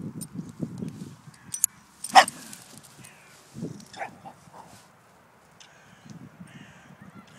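Small dog barking: one short, high bark about two seconds in, the loudest sound, and a fainter yip about four seconds in. Rustling handling noise in the first second.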